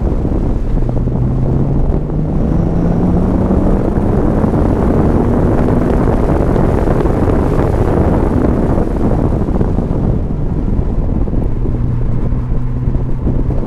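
Chevrolet C5 Corvette Z06's LS6 V8 heard from inside the cabin, pulling in third gear: its note rises steadily for the first several seconds as it revs up, then sits lower and steady near the end. Heavy road and tyre noise runs underneath.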